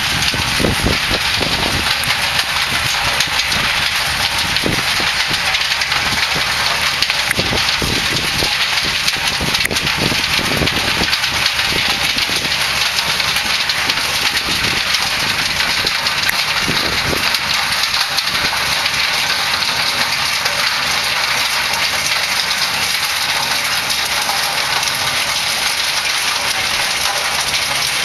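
Tractor engine running under load as it pulls a Kongskilde Stone Bear stone picker through stony soil, heard as a loud, steady rush of machine noise, with irregular low thumps through roughly the first half.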